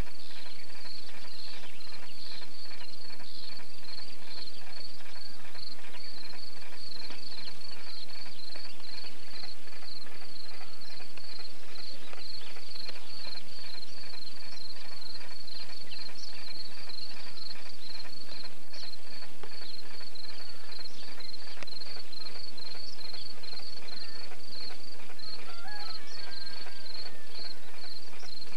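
A cricket chirping steadily in an even rhythm, a few chirps a second, over a faint rural background. A bird calls briefly near the end.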